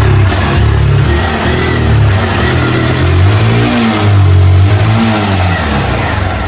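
Honda CG 160 Fan single-cylinder engine revved by the throttle, its pitch rising and falling a few times, during a charging check on a bike that bogs when accelerated.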